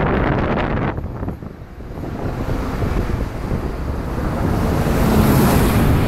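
Wind buffeting the microphone of a camera held outside a moving car, over steady road and tyre noise. The noise dips briefly about a second in, then builds to a louder rush near the end as an oncoming bus passes close by.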